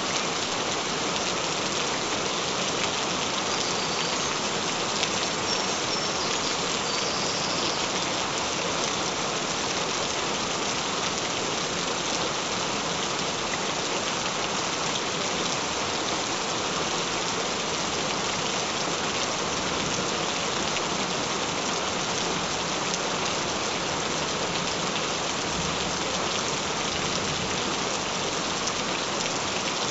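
Gentle rain falling steadily: an even hiss of many small drop hits, with no change in strength.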